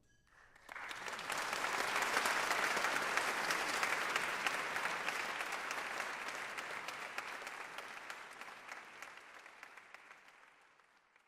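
Audience applause that breaks out about half a second in, swells quickly, then slowly thins and fades away.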